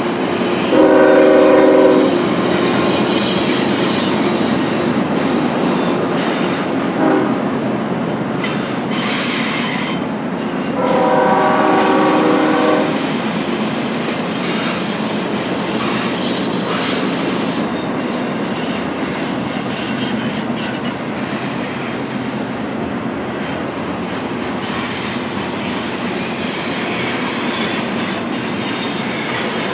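Union Pacific intermodal freight train rolling past, its wheels squealing steadily. The locomotive's air horn sounds two chord blasts, about a second in and again about eleven seconds in.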